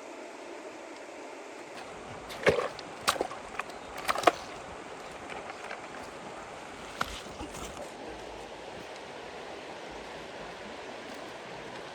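Steady rush of flowing water, with a quick cluster of short sharp splashes or knocks between about two and a half and four and a half seconds in, and one more near seven seconds.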